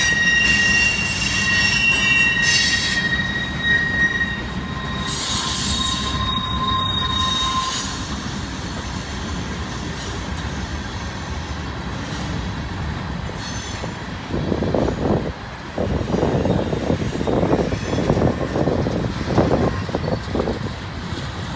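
Freight cars rolling past on steel wheels: high, steady wheel squeal over a low rumble for the first several seconds, then a steady rumble, and in the last third a run of irregular clanks and knocks as the wheels run over the rails.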